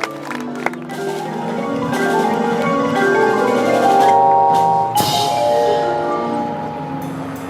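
High school marching band playing its competition show: long held chords building up in layers over mallet percussion, swelling to a loud peak, with a sharp crash that rings on about five seconds in.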